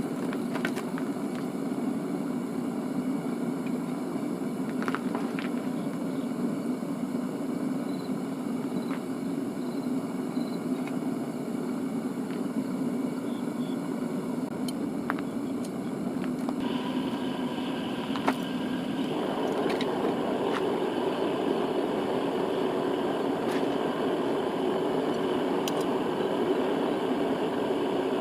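Smelting furnace burner running with a steady rushing hum and a few faint clicks; about two-thirds of the way in a thin tone joins it and the rush turns louder and fuller.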